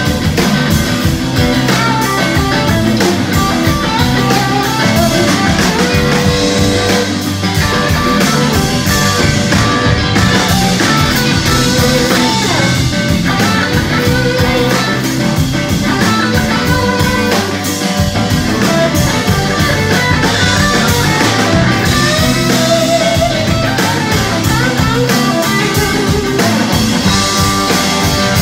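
Live rock band playing an instrumental passage with no singing: electric guitars, electric bass and drum kit, loud and steady throughout, the lead guitar bending notes.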